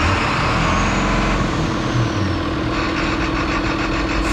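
Heavy diesel engine running steadily, with a faint high whistle that slowly falls in pitch about a second in.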